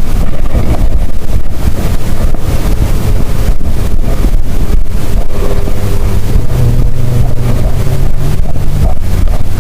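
Wind buffeting the microphone outdoors on the water, a loud rumbling noise; about halfway through a steady low hum joins it.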